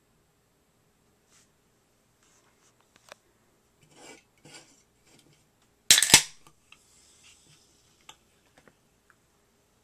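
Handling noise: scattered rubbing and small clicks, with one loud scrape or knock about six seconds in.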